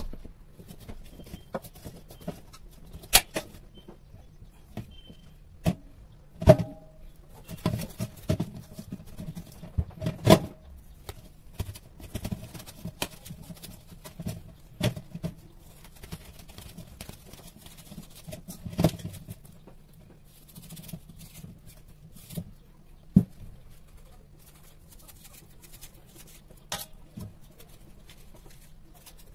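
Irregular knocks, taps and clicks of hands handling watermelon in a stainless steel bowl, as the fruit is washed and its cut flesh is worked into chunks, with a few sharper knocks along the way. A faint steady low hum lies under it.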